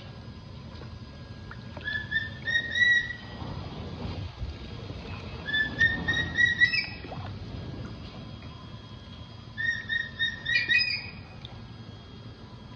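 A bird calling three times, each call a quick run of five or six short, slightly rising whistled notes, the runs about four seconds apart.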